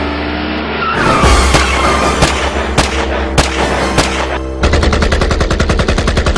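Gunfire over background music: scattered single shots through the middle, then a rapid automatic burst over the last two seconds or so.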